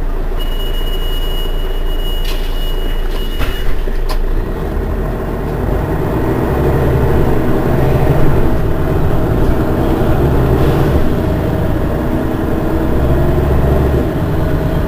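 Mercedes-Benz Citaro city bus engine running at standstill, getting louder and heavier from about four seconds in. A steady high beep sounds for about three seconds near the start, with a few sharp clicks around it.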